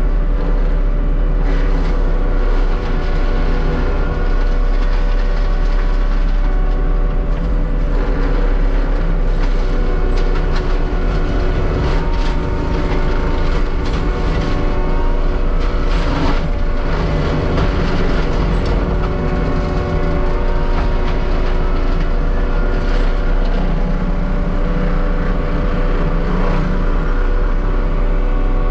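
Heavy diesel land-clearing machine running steadily under load. Several steady whining tones sit over the engine rumble, with a few short knocks about twelve and sixteen seconds in.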